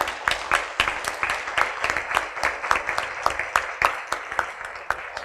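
Audience applauding, many hands clapping together, fading away near the end.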